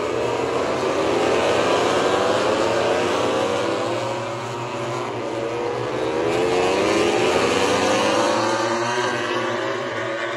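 A pack of MotoGP racing motorcycles, 1000 cc four-cylinder prototypes, passing at race speed. Their engine notes overlap and keep sliding up and down in pitch as they go through the corners. The sound swells twice, about five seconds apart.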